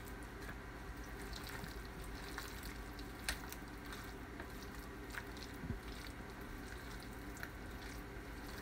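Potato salad being stirred by hand in a plastic mixing bowl: soft wet squishing, with scattered faint clicks of the utensil against the bowl.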